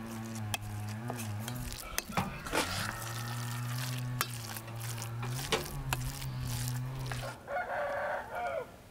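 A metal spoon stirring and scooping minced meat filling in an enamel bowl, with scattered sharp clicks and scrapes against the bowl. A low, steady drone runs beneath until near the end, when a rooster crows once.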